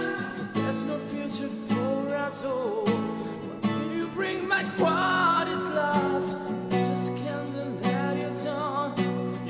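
Steel-string acoustic guitar being strummed in a steady rhythm while a man sings over it.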